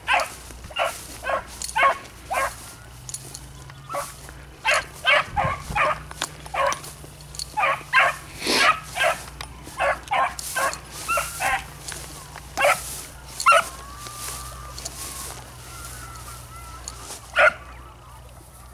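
Hunting beagles giving tongue on a rabbit trail: short, repeated barks, often a couple a second, with a few brief pauses and some faint whining.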